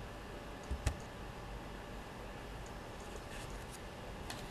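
Quiet room hiss with a sharp click about a second in and a fainter click near the end.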